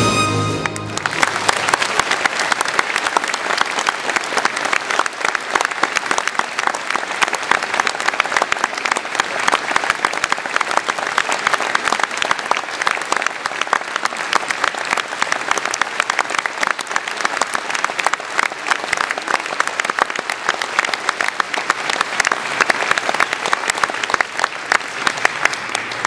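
Concert audience applauding, a dense, steady mass of clapping. It starts as the brass band's final chord ends at the very start and stops near the end.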